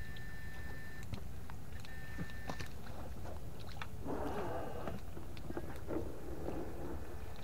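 A thin, high, steady whine from a battery electrofishing unit stops about a second in and sounds again briefly near the middle, as the stunner is switched on and off. A steady low rumble runs underneath throughout.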